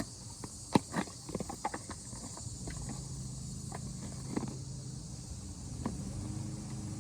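Scattered small clicks and taps over a steady high hiss, with a low hum coming in about two and a half seconds in.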